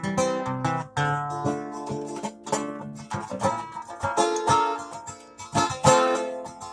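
Guitar being played: plucked and strummed chords, each note with a sharp attack that rings on until the next.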